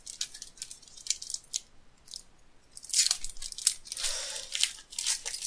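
Foil Pokémon booster pack wrapper crinkling in the hands as it is torn open, with a longer ripping tear about four seconds in.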